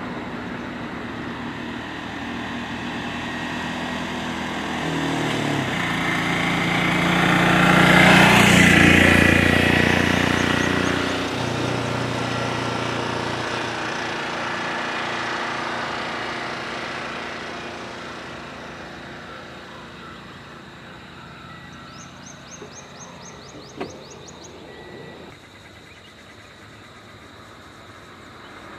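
A three-wheeler auto-rickshaw's small engine driving past, growing louder to a peak about eight seconds in and then fading away. A brief run of high chirps comes near the end.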